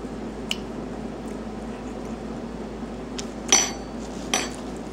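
Two sharp clinks of tableware about a second apart, each with a brief ringing, the first the louder, over a steady low room hum.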